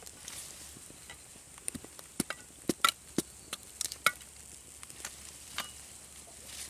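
Small wood cooking fire crackling under a smoking pot of eggs: irregular sharp pops and clicks over a faint steady hiss.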